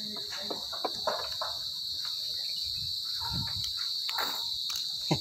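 Steady chorus of crickets, a continuous high-pitched trill, with a few faint knocks and rustles in the foreground.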